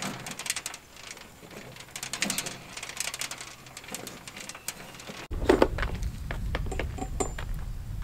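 Dry soybeans rustling and clicking as fingers pick through them on the auger hopper's wire grate. About five seconds in, this cuts to a steady low rumble with a few footsteps crunching on gravel.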